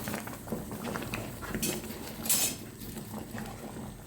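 A utensil clinking and scraping against a cooking pot, with two short hisses a little after the middle.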